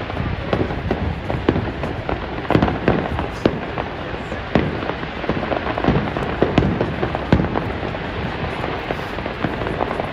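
Fireworks display: aerial shells bursting in a rapid, irregular string of bangs over a continuous haze of noise.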